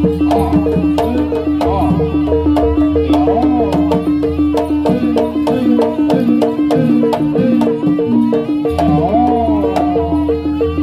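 Live jaranan (kuda kepang) ensemble music: kendang hand drums and gong-chime strokes keep a fast, even beat under a held low tone, while a melody line bends up and down above them.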